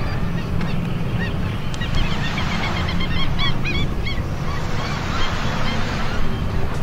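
Outdoor ambience: a steady low rushing noise, with a run of short, high chirps in the middle.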